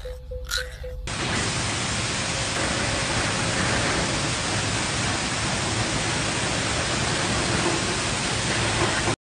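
A steady, loud hiss like static, with no pitch or rhythm in it. It starts about a second in and cuts off suddenly at the end.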